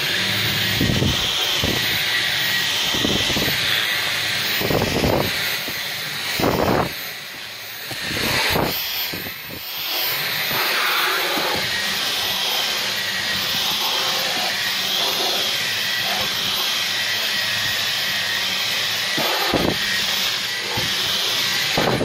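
Dyson V11 Absolute Extra cordless stick vacuum running on Boost, its highest suction setting: a loud, steady rushing hiss with a faint high whine as the nozzle on the extension wand is pushed over carpet. It starts right at the beginning, dips twice around the middle, has a few short rattles along the way, and cuts off at the end.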